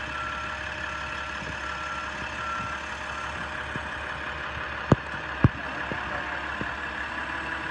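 Forklift running with a steady engine hum while loading a pallet into a pickup truck bed, with two sharp knocks about half a second apart roughly five seconds in.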